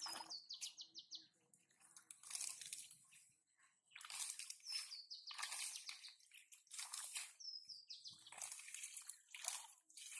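Hands splashing and rummaging through shallow muddy water and wet grass in irregular short bursts, with a small bird chirping a few short calls now and then.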